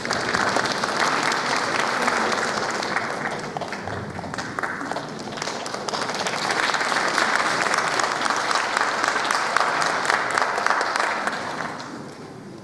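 Audience applauding. The clapping eases off about four seconds in, swells again, and dies away near the end.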